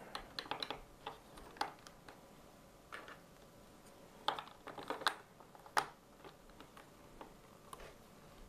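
Plastic Lego bricks clicking and tapping as they are handled and pressed onto a baseplate: a scatter of small irregular clicks, the sharpest about six seconds in.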